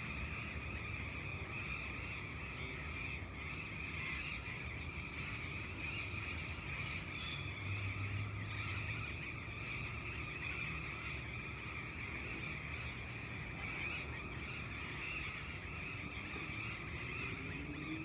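Dawn chorus of many birds chirping continuously over a low, steady rumble of distant traffic; near the end a distant engine rises in pitch.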